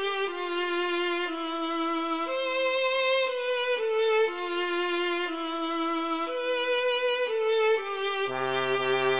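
Background music: a slow melody of long held notes in a violin-like tone, changing about once a second over a second part. A lower line joins near the end.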